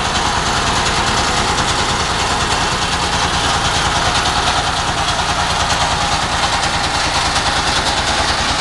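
A small wooden passenger boat's inboard engine running steadily while the boat is under way, with a rapid, even throb.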